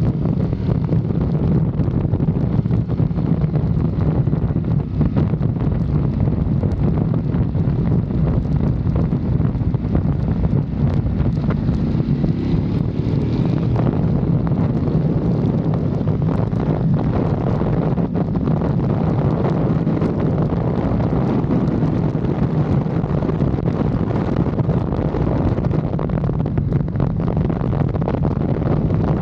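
Motorcycle riding at speed: heavy wind buffeting on the microphone over the steady drone of the engine. About halfway through, the engine note rises as the bike accelerates.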